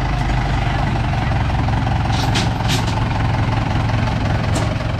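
Engine of a tracked carrier running steadily under load as it crawls up a steep bank, with a few short high clicks or squeaks between two and three seconds in and again near the end.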